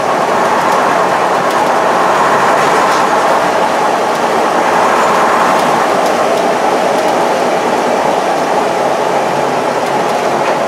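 Interior noise of a 1954 Bristol Lodekka double-decker under way, heard from the front of the lower saloon: its Gardner five-cylinder diesel runs steadily at an even pace, mixed with road and body noise.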